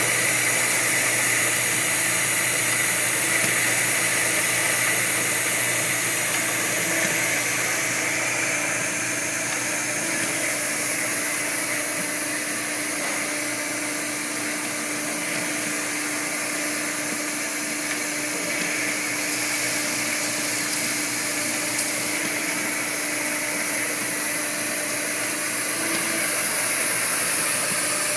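Haeger 618Plus hardware insertion press and its vibratory bowl feeder running: a steady machine hum over a dense high hiss that holds throughout, with no clear strokes or knocks.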